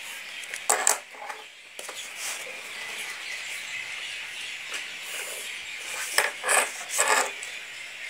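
Short scraping and rubbing noises of a pencil compass, ruler and pencil handled and drawn across paper, a couple about a second in and a cluster of three near the end, over a steady hiss.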